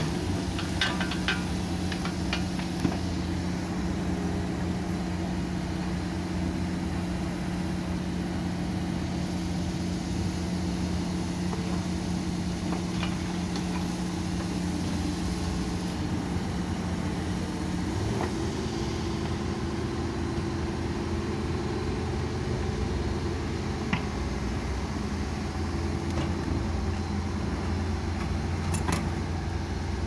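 Backhoe loader's diesel engine running steadily at low revs while the backhoe arm digs slowly, with a few light clicks and knocks from the bucket working the soil. The engine note shifts about eighteen seconds in.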